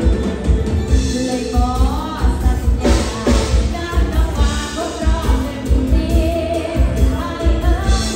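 Live band playing a Thai song: a woman singing over electric guitars, keyboard and bass, with a steady kick-drum beat.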